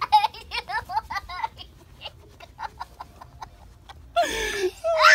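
A small boy laughing while being tickled: a quick run of high-pitched giggles, then softer bits of laughter and a loud squeal near the end.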